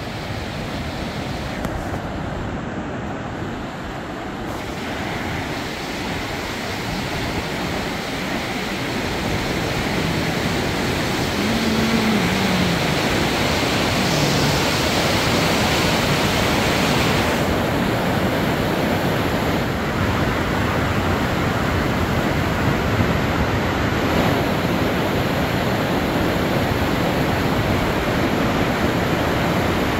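Fast mountain river rushing over boulders in white-water rapids, a steady loud wash of water that grows louder about ten seconds in.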